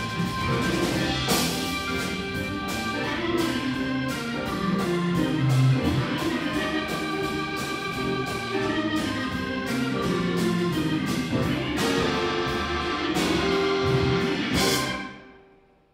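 Live blues band playing an instrumental swing number on electric guitars, keyboard and drums, with steady cymbal strokes; it ends on a final chord about fifteen seconds in that dies away quickly.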